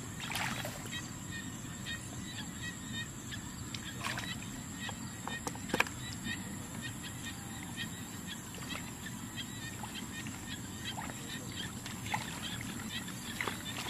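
Hands groping and sloshing in shallow muddy water, with scattered small clicks and splashes and one sharper click about six seconds in.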